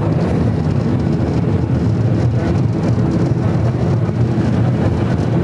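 San Francisco cable car riding along its street rails: a steady, loud low rumble and rattle of the moving car.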